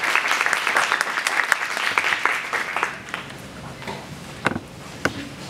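Audience applauding, the clapping dying away about three seconds in, followed by a few scattered knocks.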